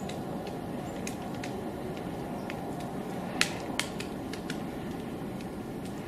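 A woodpecker pecking at a tree trunk: about a dozen sharp single taps at irregular intervals, the loudest a little past the middle. The taps are spaced like foraging at the bark, not a drum roll. A steady low rumble runs underneath.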